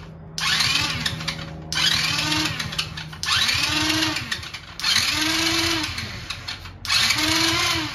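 Electric starter motor cranking the Kazuma Meerkat's 50cc four-stroke engine in five separate bursts of one to two seconds, each with a whine that rises and falls, on its first test fire with starter fluid.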